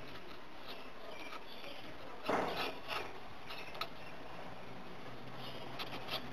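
Felt-tip marker scratching and squeaking on paper in short strokes as letters are written, over a steady hiss; the loudest stroke comes a little past two seconds in.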